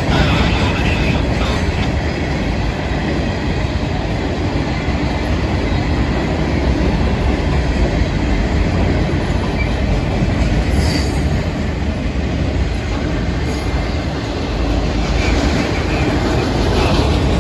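Florida East Coast freight train cars rolling past on the rails with a steady heavy rumble and wheel noise, and a brief high wheel squeal about ten seconds in.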